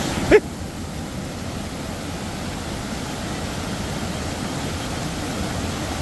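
Steady rushing of a waterfall, mostly low in pitch, with a short sharp pop about a third of a second in.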